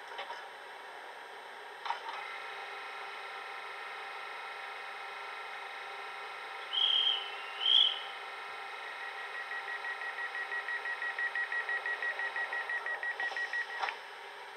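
Factory-fitted DCC sound decoder of a Brawa Twindexx model EMU playing through its small onboard speaker with the train standing: a click, then a steady electrical hum, two short high toots about seven and eight seconds in, then rapid beeping, about four a second, that grows louder until everything cuts off with a click near the end.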